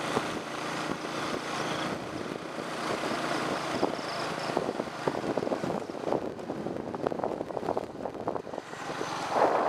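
Small motorbike engine running steadily as it rides along, with wind gusting on the microphone more and more in the second half.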